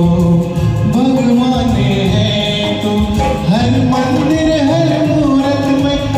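A man singing a Hindi film song over a karaoke backing track.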